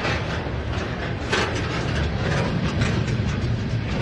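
Freight train's boxcars and lumber-loaded flatcars rolling past at close range: a steady low rumble of steel wheels on rail with sharp clanks and rattles now and then, the loudest about a second and a half in.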